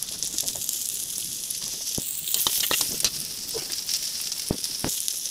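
Sliced garlic and onion sautéing in hot oil in a wok, a steady sizzling hiss with scattered crackles and a few sharp clicks.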